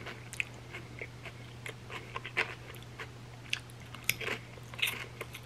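A person biting and chewing crunchy chips loaded with creamy dip, with irregular crisp crunches and a faint steady low hum underneath.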